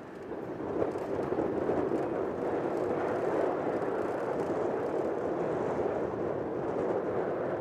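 Jet airliner engine noise, a broad rushing sound that swells about a second in, holds steady, and eases slightly near the end.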